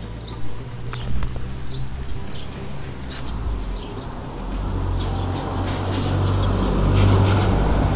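Small birds chirping now and then, over a low rumble that grows louder with a rushing noise in the second half.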